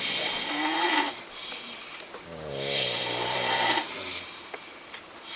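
A sleeping person snoring twice: one snore right at the start and a longer one of about a second and a half beginning about two seconds in. Each is a hissing breath with a low buzzing vibration in it.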